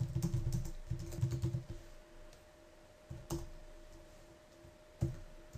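Typing on a computer keyboard: a quick run of keystrokes for about two seconds, then two single clicks, one near the middle and one near the end, over a faint steady hum.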